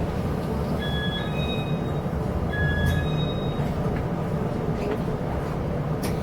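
Steady rumble of a Chu-Kuang express passenger carriage running along the track, heard from inside the car. A short two-note electronic chime sounds twice, about a second in and again near three seconds.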